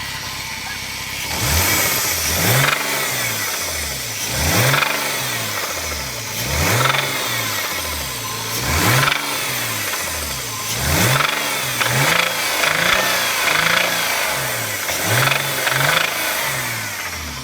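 Car engine revved over and over in short throttle blips, roughly every one to two seconds, to bring out a knock that is not there at idle.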